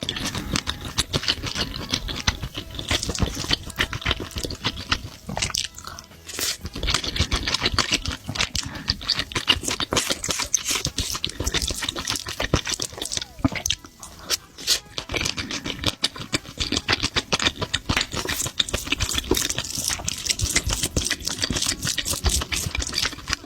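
Close-miked eating sounds: chewing, wet smacks and clicks of the mouth on chewy octopus and fried rice, going on irregularly with brief pauses.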